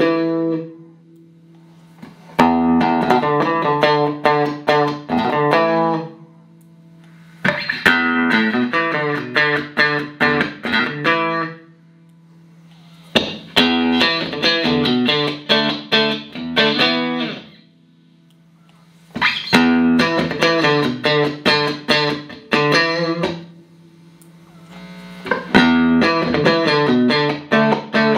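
Clean electric guitar played through Roland JC-120 amps: five short phrases of quickly picked single notes, each about four seconds long, with brief pauses between them. A low tone rings on through the pauses.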